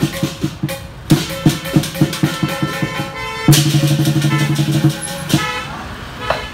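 Lion dance drum and cymbals beating a fast, even rhythm. About three and a half seconds in, a vehicle horn blares for about a second and a half over the drumming, and a car drives past close by near the end.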